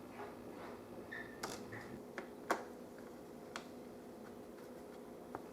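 Faint clicks and ticks of a small screwdriver and screws being worked into a laptop's screen lid, a few scattered taps with the sharpest about halfway through, over a low steady hum.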